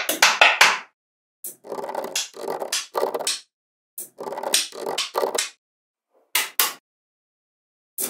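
Small magnetic balls clicking and clattering against each other in quick bursts, with short silent gaps between them and two single clicks near the end.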